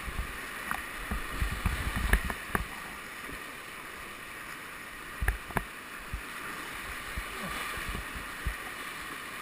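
Whitewater rushing and splashing around a kayak running a shallow rapid, with short low splashes and knocks from the paddle strokes, the strongest pair about five seconds in.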